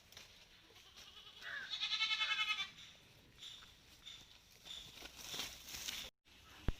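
A Malabari goat bleating once, a long wavering bleat about a second and a half in, with fainter rustling afterwards and a sharp click near the end.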